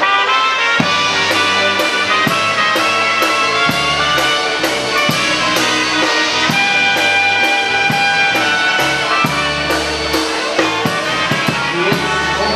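Live polka band playing: a drum kit keeping a steady cymbal beat under held horn notes and bass, the band coming in at full volume right at the start.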